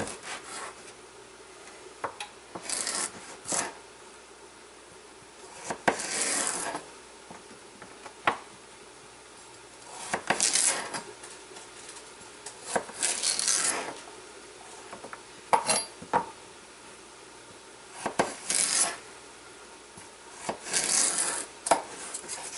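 Chef's knife splitting raw carrots lengthwise on a plastic cutting board: a cut every few seconds, with a few sharp knocks of the blade on the board in between.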